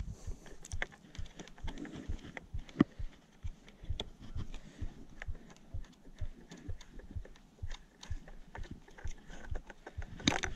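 Faint irregular clicks and knocks of hands gripping and twisting a spin-on oil filter loose on a Suzuki four-stroke outboard motor, with low thumps of wind on the microphone.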